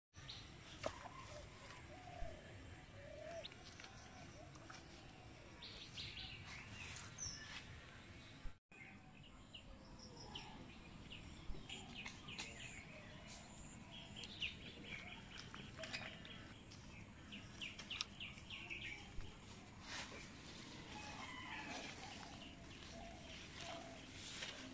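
Faint outdoor ambience of small birds chirping in short repeated calls, with a few sharp taps or clicks scattered through.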